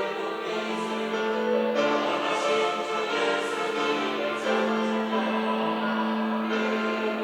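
Church choir singing in harmony, on long held chords, with fresh phrases coming in about two seconds in, past the middle and near the end.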